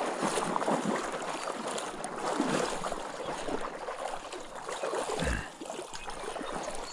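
Continuous, irregular splashing and sloshing of water from someone wading through a shallow marsh, with a low thump about five seconds in.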